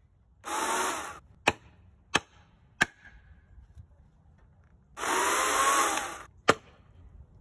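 Electric chainsaw cutting into a log in two short bursts, its motor whine rising as it runs, with no engine running between them. Between the bursts a hammer taps the wedge in the cut: three sharp knocks after the first burst and one after the second. The wedge holds the kerf open so the chain doesn't bind.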